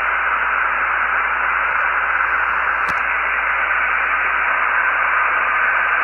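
Realistic DX-200 shortwave receiver's speaker giving a steady, muffled hiss of band noise and static on 80 metres, with no voice coming through. A brief click near the middle.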